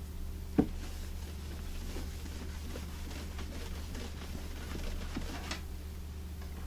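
A cloth rubbing and wiping over the wooden top of a radio cabinet, applying Howard Feed-N-Wax, as soft repeated scuffing strokes. A single sharp knock comes about half a second in, over a steady low hum.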